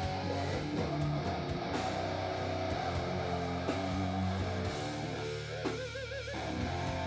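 Live metal band playing: distorted electric guitar chords over bass and drums. About five and a half seconds in, the band drops out for under a second and a single wavering held note sounds alone before the full band comes back in.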